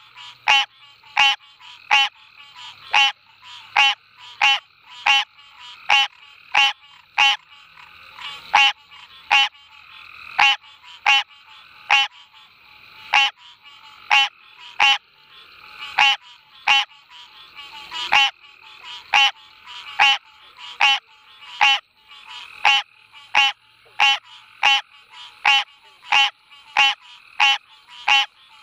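Green treefrog calling: short calls repeated evenly, about two a second, with other frogs of a chorus calling faintly behind it.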